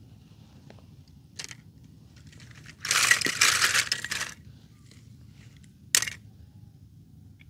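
Toy cars clattering together in a plastic basket: a rattling stretch of about a second and a half, then a single sharp clack near the end.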